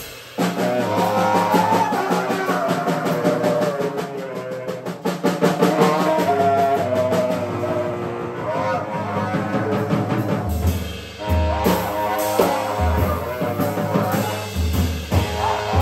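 A saxophone and a drum kit playing together: a wavering saxophone line over a dense, rapid flurry of drum and cymbal strokes, with bass-drum thumps coming in about ten seconds in.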